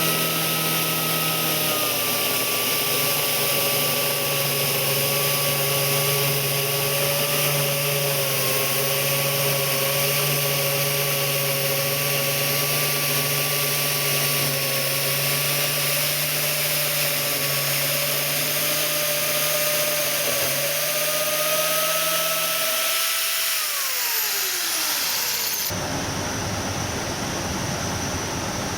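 A motorised machine running steadily with a whining hum over hiss, then winding down in pitch about 23 seconds in. After that, a different steady hiss takes over.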